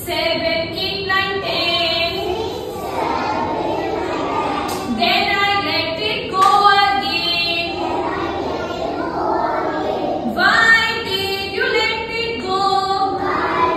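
A group of young children singing a number song in chorus, with a woman's voice singing along.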